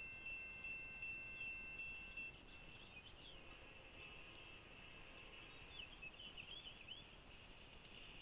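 Railroad grade-crossing warning bell ringing faintly, about two strokes a second, cutting off about two seconds in as the crossing signal ends. After it, faint bird chirps: short rising and falling notes.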